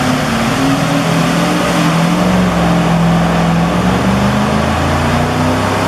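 A car engine running hard under load on a chassis dynamometer during a dyno pull toward its 6,300 rpm redline. Its pitch climbs slowly, then holds steady.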